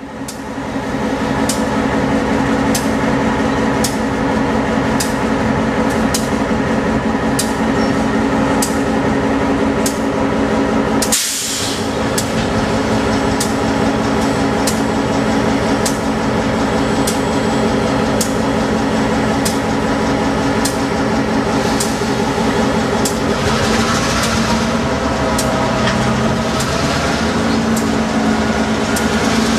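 Diesel freight train running past: a steady locomotive engine hum under regular sharp clicks of wheels passing over rail joints, a little more than one a second. A brief drop about eleven seconds in, and a hiss builds near the end.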